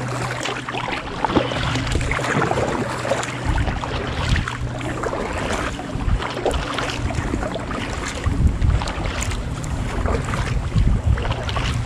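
Double-bladed kayak paddles dipping into calm sea water in irregular strokes, with splashes and drips from the blades, and wind buffeting the microphone.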